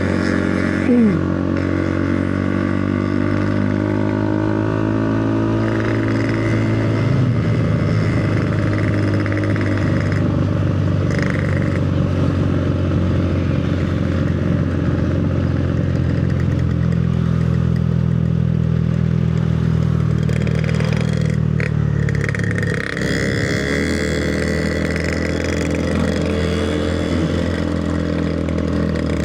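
Motorcycle engine running under way, its pitch rising and falling with the throttle and gear changes. A brief loud falling tone sounds about a second in.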